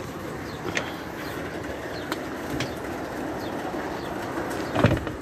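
Steady hiss of an aviary's water misting sprayers running, with doves cooing and a few sharp clicks. A louder knock comes near the end.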